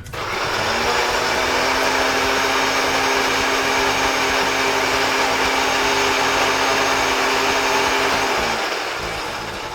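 Countertop blender switched on and running at a steady high speed, puréeing a wet mix of fresh herbs, peppers, onions and vegetable stock. It starts abruptly and winds down over the last second or so as it is switched off.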